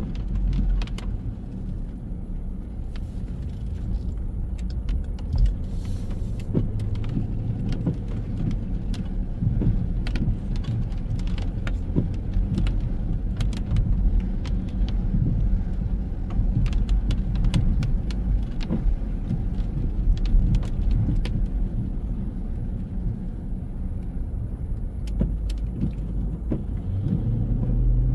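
Steady low rumble of car traffic, with many small clicks scattered through it. An engine hum grows louder near the end.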